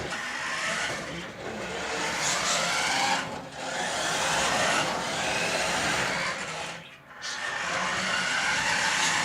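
Toy remote-control car's small electric motor whining as it drives, its pitch wavering up and down with speed, cutting out briefly twice when it stops.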